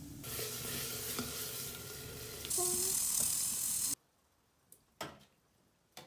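Food sizzling in a lidded pot over an open wood fire, the hiss growing louder about halfway through. It cuts off abruptly, followed by a few light clinks of a ladle on metal dishes.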